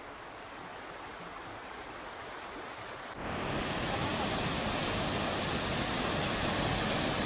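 Water rushing in a shallow rocky creek, then after a cut about three seconds in, the louder, steady rush of a waterfall pouring into a plunge pool.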